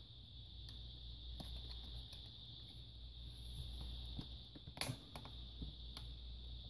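Faint, scattered clicks and taps of a laptop's casing and small parts being handled during disassembly, one sharper click about five seconds in, over a steady faint high whine.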